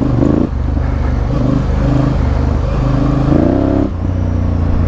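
Honda Africa Twin CRF1000L's parallel-twin engine running under throttle off-road. It rises in pitch and drops back sharply twice, about half a second in and again near four seconds.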